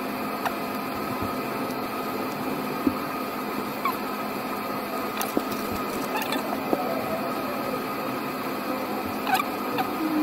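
Occasional light clicks and handling noises as multimeter test probes are touched to the legs of small power transistors, over a steady background hiss.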